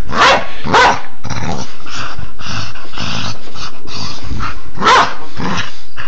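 A dog growling and barking in play, with two sharp barks near the start and two more about five seconds in.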